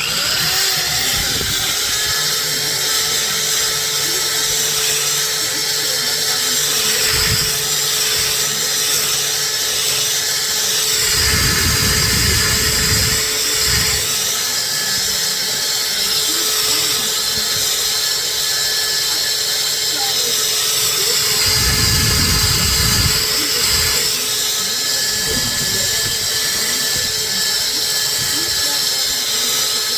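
Electric power tool running steadily at constant speed, with its load changing twice.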